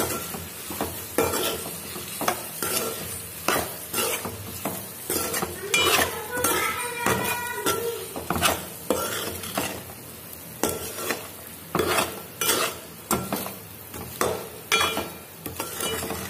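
A metal spatula stirring chicken pieces in a steel pan as they fry, scraping and clinking against the metal about once a second over a steady sizzle, mixing in the spice powders.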